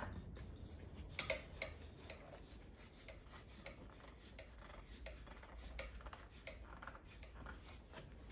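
Faint rubbing and scattered light clicks as a spin-on oil filter is screwed on by hand.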